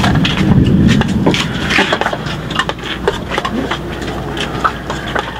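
Eating utensils and a serving spoon clinking and knocking against plates and a cooking pot during a meal. Scattered short clicks follow a muffled low rumble in the first second or so.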